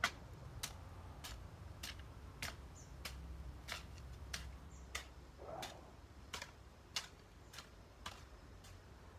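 Hoe blade chopping into dry garden soil, a sharp click with each stroke in an even rhythm of about three strokes every two seconds.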